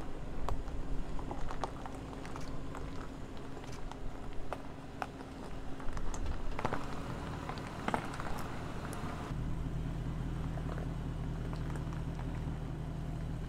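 The Land Rover Defender 90's supercharged V8 runs at a low, steady pitch as the vehicle crawls over loose rock, with tyres crunching gravel and stones clicking under them. About nine seconds in the engine hum becomes steadier and louder.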